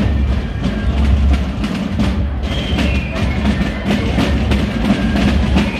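Basel marching drums played by a clique on the move: dense, rapid strokes and rolls in a steady march rhythm, with a few faint high held notes over the drumming.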